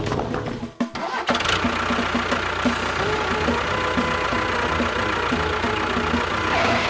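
Engine starting, then running steadily with a regular low pulsing.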